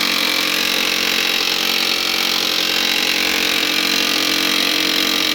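HP LaserJet M1005 laser printer making a loud, continuous mechanical noise on power-up, with steady tones running through it, that cuts off suddenly near the end. It is the fault noise that the technician traces to the paper pickup roller jammed by a broken plastic piece lodged beneath it.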